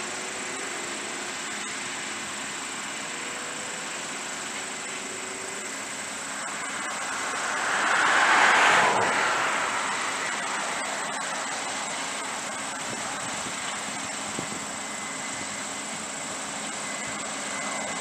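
Case IH 8230 combine harvesting soybeans, a steady even running noise of engine and threshing. About eight seconds in, a louder rush of noise swells up and dies away over a few seconds.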